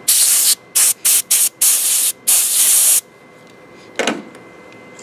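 Dental air syringe blowing hissing blasts of air onto a freshly cut cavity in a plastic model molar. There are six short puffs of uneven length over about three seconds, then one weaker puff about a second later.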